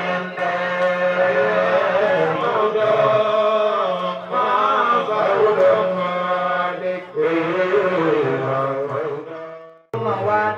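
Men chanting an Arabic devotional song in praise of the Prophet into microphones, a lead voice winding through long drawn-out lines over a steady low note held underneath. The sound cuts out suddenly for a moment near the end, then comes back.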